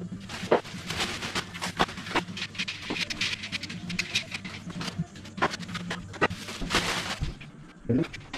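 Irregular sharp clicks and rustling as fabric vertical blind slats are hung and clipped onto the headrail.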